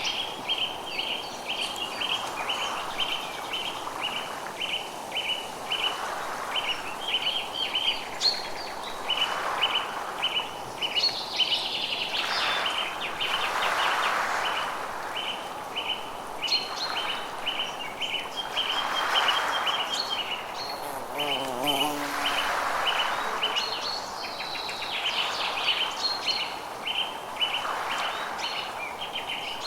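Forest ambience: a bird repeats a short, high chirp about twice a second, with other birds calling now and then. Underneath, a soft hiss swells and fades every couple of seconds, and a brief lower wavering call comes a little past the middle.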